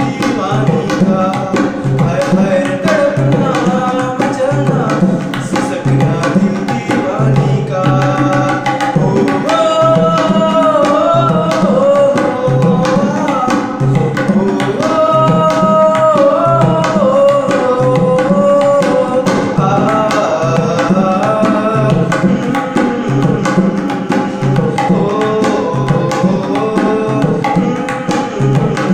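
A man singing a melody while accompanying himself on a tabla pair, with quick strokes on the small treble drum and booming notes on the bass drum.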